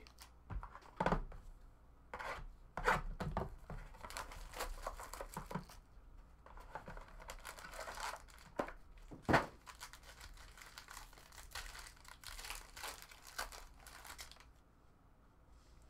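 Hands tearing open a shiny silver Topps Tier One card pack wrapper and crumpling it: irregular crinkling and ripping with a few sharp snaps, which stop a little before the end.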